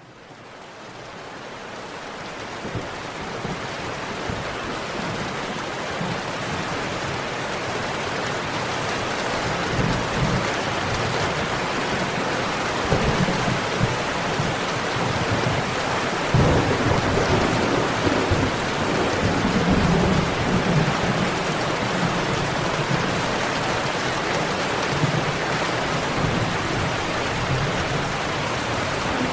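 Steady heavy rain falling, fading in over the first few seconds. Low rolls of thunder rumble under it about ten seconds in and again from about sixteen to twenty-one seconds in.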